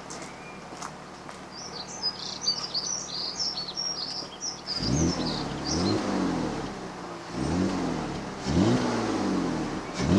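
Birds chirping for the first few seconds. Then a BMW E39 520i's M54B22 2.2-litre straight-six is revved in short blips through its exhaust, each rise in pitch falling quickly back, about four times.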